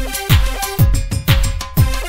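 Background electronic dance music with a steady kick-drum beat about twice a second and synth notes.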